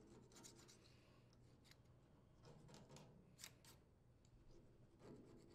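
Near silence, with faint scratching and rubbing as old head-gasket residue is scraped and wiped off the engine's crankcase mating surface by fingers and a cloth.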